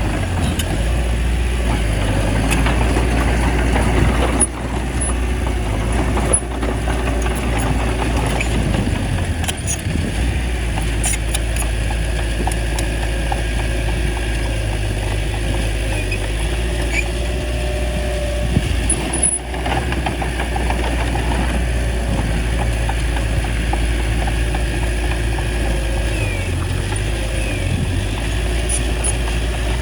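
Small bulldozer's diesel engine running steadily, with a few sharp clanks along the way.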